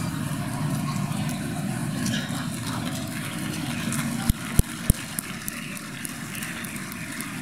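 Audience chatter filling a large hall, with three short sharp knocks about four to five seconds in.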